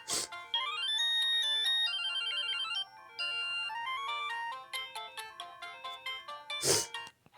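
Samsung SGH-X450 mobile phone playing a polyphonic ringtone melody through its small built-in speaker, with a short break about three seconds in. A brief burst of noise at the start and again near the end.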